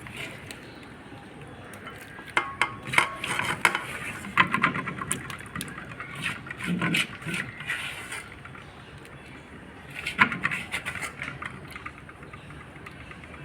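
Kitchen utensils clinking and knocking against cookware in irregular clusters, with a pause in the middle and a last flurry about ten seconds in, over a steady low background.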